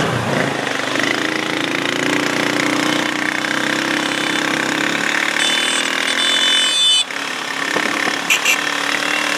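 Road traffic passing close by: vehicle engines and tyre noise, with a high whine about six seconds in and a sudden drop in level about a second later.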